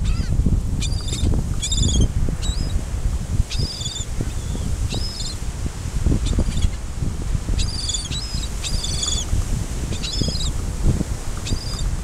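Gulls calling over and over in short high squeals, over a loud steady low rumble of wind and surf.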